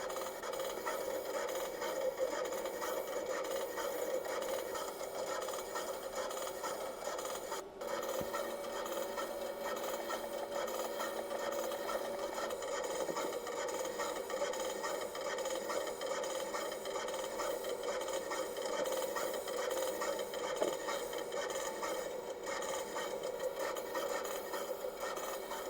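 Automated pick-and-place machine running while assembling LED circuit boards: a steady mechanical whir and hum with rapid fine ticking, briefly interrupted about eight seconds in.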